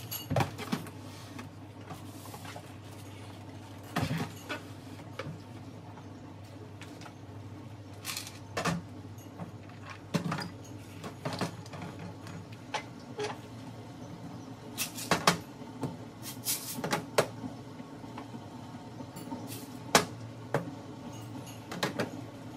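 Clear plastic food storage canisters knocking and clacking as they are set down and pushed into place on a cupboard shelf: scattered sharp knocks, a quick run of them about two-thirds of the way through and one loud clack near the end.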